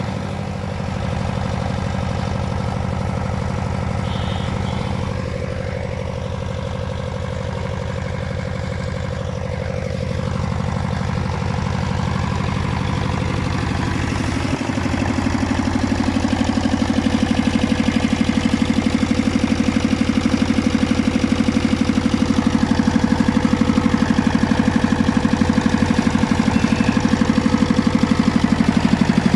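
Trailer-mounted diesel generator set running steadily, its diesel engine driving an alternator that lights a few test bulbs, with an even rapid engine pulse. It grows louder about halfway through.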